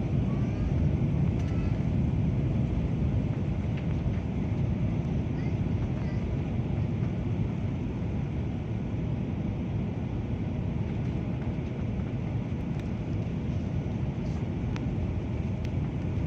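Steady low rumble of an airliner cabin: jet engine and airflow noise heard from inside the passenger cabin.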